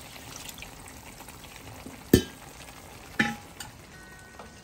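Water poured into a large pot of rice and chicken, which is then stirred with a wooden spoon. Two sharp metal clanks of kitchenware come about two and three seconds in, the first the louder and the second ringing briefly.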